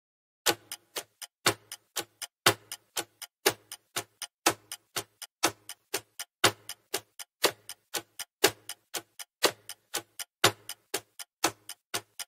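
Clock-ticking countdown sound effect: a steady tick-tock, about four ticks a second with the loudest once a second.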